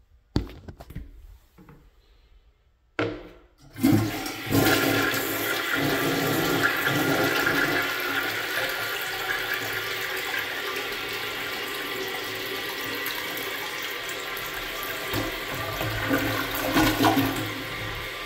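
American Standard Cadet toilet flushing. After a few quiet clicks, the flush starts suddenly about four seconds in with a loud rush of swirling water. It then settles into a steady, slightly quieter rush of water that eases near the end.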